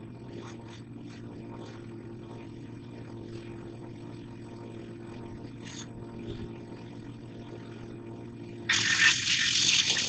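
Steady low drone of a running engine from the tree-trimming work. Near the end comes a loud, harsh rush of noise lasting about a second and a half.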